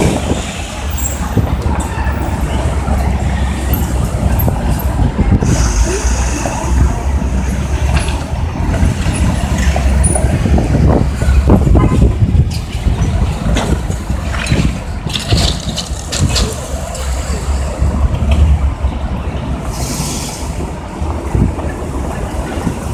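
City street traffic of cars and trucks passing, heard through a smartphone's overloaded microphone, with wind buffeting it in a steady low rumble. There are brief high hisses about six seconds in and again near the end.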